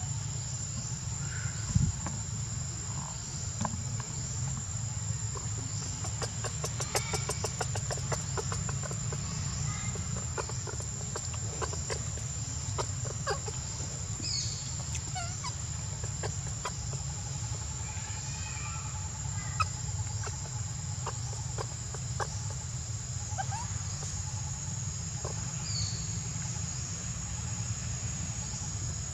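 Outdoor ambience: a steady high-pitched insect drone over a low rumble, with scattered short clucking calls and clicks, including a quick run of clicks about a quarter of the way in.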